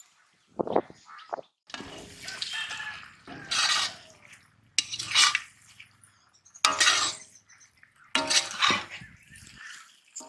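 Metal ladle scraping and stirring thick turkey curry in an iron kadai: a series of separate scrapes, each lasting half a second to a second, some with a faint metallic ring.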